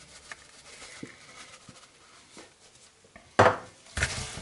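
Faint small clicks as seasoning is shaken onto pork slices, then a single loud clunk of kitchenware about three and a half seconds in. After that comes a rustling as black nitrile-gloved hands start rubbing the spice into the meat in a large bowl.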